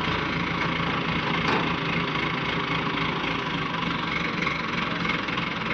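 Diesel engine of an ACE hydra pick-and-carry crane running steadily with a constant low hum while the crane holds a tanker truck's front end up on its hook.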